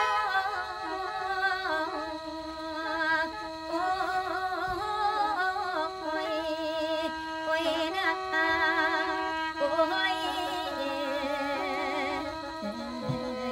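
Khaen, the Isan bamboo free-reed mouth organ, playing a lam melody over steady held drone notes, with a woman singing lam alongside it.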